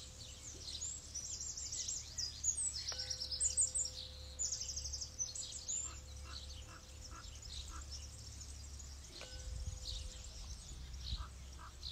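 A tuning fork is struck on its activator puck about three seconds in and rings a steady, pure high tone for several seconds. It is struck again near the end. Birds chirp over it.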